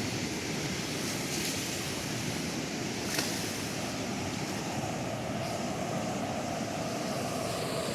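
Steady rushing of a swift river running high after heavy rain, with one light click about three seconds in.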